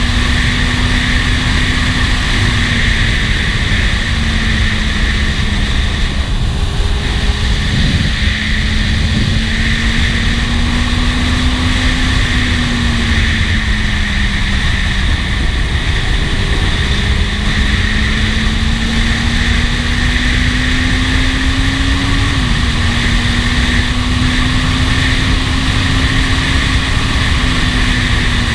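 Kawasaki Z750 S inline-four engine running at steady cruising speed, its drone drifting gently up and down with the throttle, under heavy wind rush on the camera microphone.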